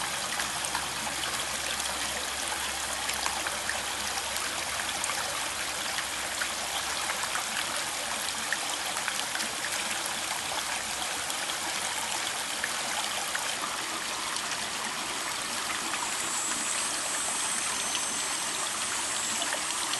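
Steady running, trickling water of a backyard pond.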